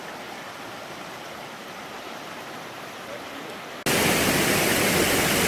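Creek water rushing steadily. About four seconds in it cuts abruptly to a much louder, fuller rush of water.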